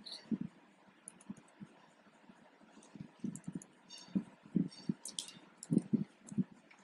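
Typing on a computer keyboard: separate key clicks, sparse at first, then a quicker run of keystrokes from about three seconds in.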